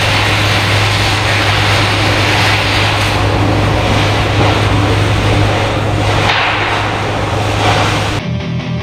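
Electric arc welding: a dense, steady crackling hiss over a constant low hum, cutting in abruptly and stopping about eight seconds in.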